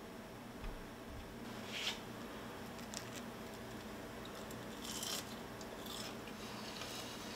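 Quiet room tone with a steady low hum and a few faint, short crackles or rustles.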